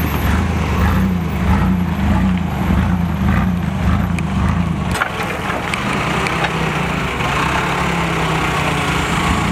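Chevrolet S10 pickup's engine running as the truck drives slowly past close by and manoeuvres at low speed; the low rumble eases off about five seconds in.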